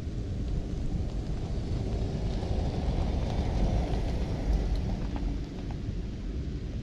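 Strong wind buffeting the microphone: a steady low rumble with hiss above, swelling slightly in the middle and easing toward the end.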